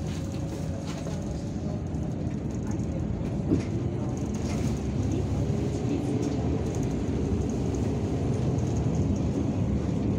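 Cabin noise inside an Irisbus Citelis 12M city bus: a steady low engine and road rumble, with a brief knock about three and a half seconds in. The rumble grows a little louder in the second half.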